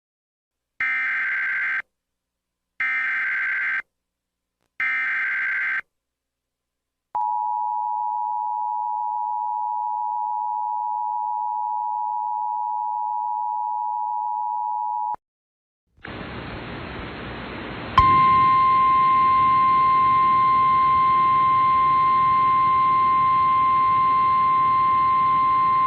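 Emergency Alert System tones: three roughly one-second bursts of screechy digital header data, then the two-note EAS attention signal held for about eight seconds. After a short gap, a hiss of radio static comes in, and about two seconds later a single steady weather-radio warning tone starts over it. Together they signal a tornado warning.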